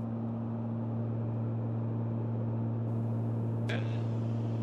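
Steady drone of the King Air 200's twin Pratt & Whitney PT6A turboprops and propellers heard in the cockpit: a low, even hum with a steady tone and a second one an octave above. A short click comes at about three and a half seconds in.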